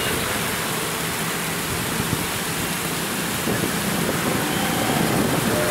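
Steady rush of water pouring over a shallow concrete weir.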